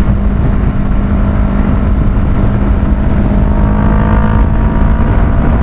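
Kawasaki Ninja 650's parallel-twin engine running at a steady highway cruise, under heavy wind rush on the rider's microphone. A faint higher whine comes and goes around four seconds in.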